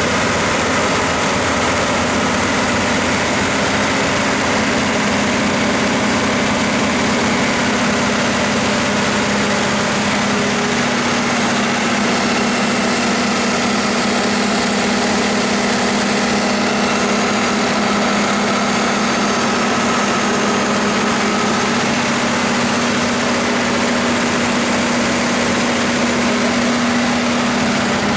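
Cummins NTA855-G2 turbocharged 14-litre inline-six diesel engine of a 300 kW generator set running steadily, heard up close through the open enclosure doors.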